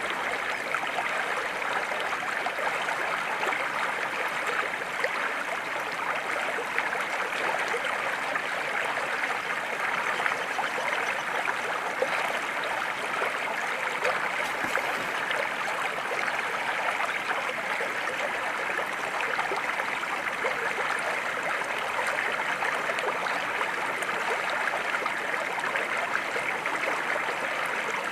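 Steady, even rush of flowing water, like a stream running through shallows.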